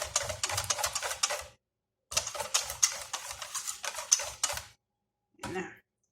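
Pancake batter being mixed fast in a bowl: a utensil clicks rapidly against the bowl. It pauses about a second and a half in, then picks up again until almost five seconds in.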